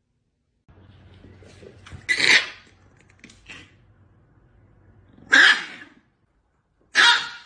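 A dog giving three short, sharp barks, a few seconds apart.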